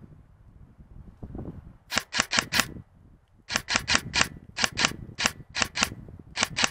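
Airsoft guns firing in quick strings of sharp cracks, four or five shots to a string, starting about two seconds in and coming again and again over a low rumble of movement.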